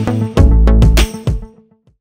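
Background music with a heavy bass line and drum hits on the beat, ending about one and a half seconds in.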